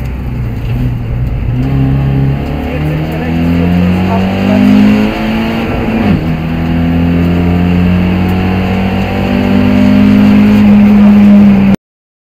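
BMW E36 318is rally car's 1.8-litre four-cylinder engine heard from inside the cabin under hard acceleration. The revs climb, drop at a gear change about six seconds in, climb again, and the sound cuts off suddenly near the end.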